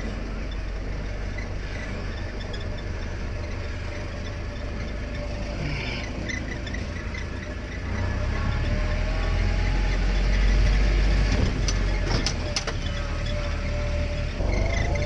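1953 Willys CJ3B jeep on the move, its four-cylinder F-head engine running steadily and getting louder about eight seconds in. A few short sharp rattles come a little after that.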